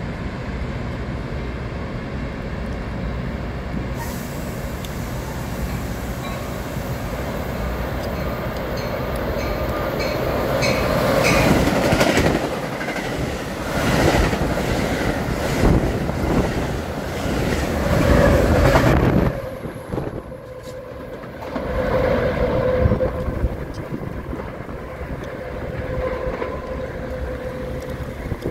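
Metra commuter train of stainless-steel bilevel gallery cars passing close by at speed: a rumble that builds, then a loud run of wheel clicks over the rails for several seconds. It drops off sharply about nineteen seconds in as the last car clears, leaving a fainter rumble with a steady hum.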